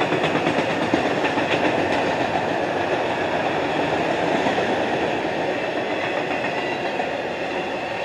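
Enclosed autorack freight cars rolling past: a steady rattling rumble of steel wheels on rail, with rapid wheel clicks over the first two seconds.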